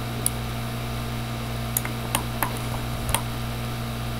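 About five faint, scattered clicks of a computer mouse over a steady low electrical hum.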